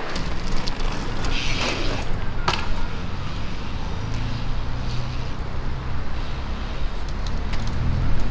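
Trials bike hopping on its back wheel and landing on concrete ledges, giving a sharp knock about two and a half seconds in and a few lighter clicks near the end, over a steady low rumble.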